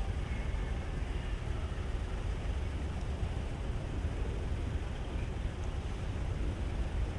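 Steady low rumble of vehicle engines, with no sudden events.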